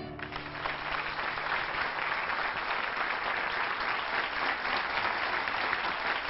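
A seated audience applauding, the clapping building over the first second or so and then holding steady. The last notes of the plucked-string ensemble die away under it at the very start.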